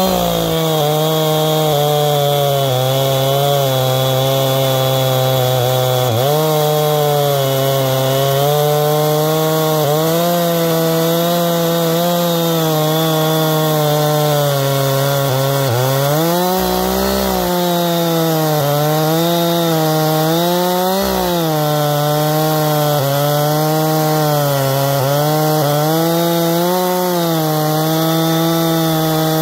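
Husqvarna 460 Rancher two-stroke chainsaw on an Alaskan chainsaw mill, running at high revs as it rips lengthwise through a cedar log. The engine pitch sags and recovers a few times as the chain bogs in the cut, deepest about halfway through.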